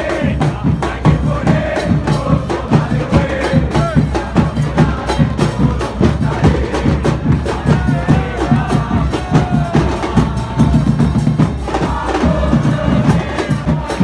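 A football supporters' crowd singing a chant together over steadily beating bass drums, loud throughout.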